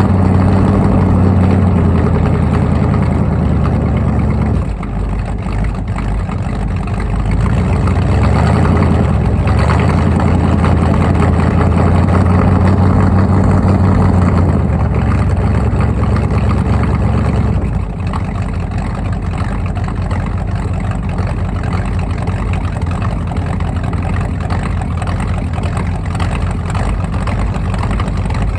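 A Ford 302 V8 in an F150 running at the tailpipe during a cold-start warm-up, with thick vapour showing it is still cold. The engine is held at a raised speed, drops back about four and a half seconds in, comes back up around eight seconds, then settles to a lower, quieter run about eighteen seconds in.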